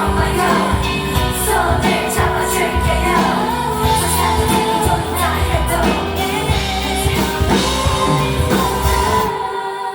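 Live pop song with female singing over full band backing. About nine and a half seconds in, the drums and bass stop and held chords are left ringing out as the song ends.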